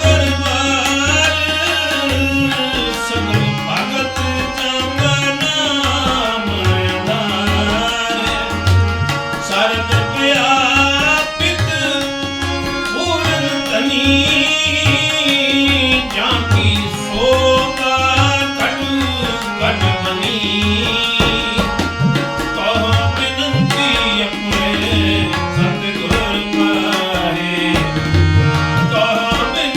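Sikh devotional kirtan music: tabla keeping a steady rhythm under a melodic line that glides up and down in pitch.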